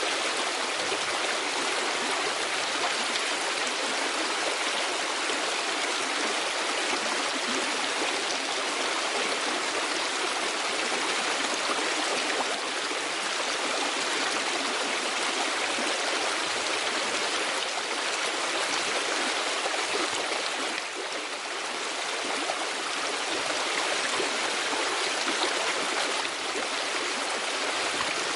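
Steady rushing of running water, like a stream: an even, unbroken hiss.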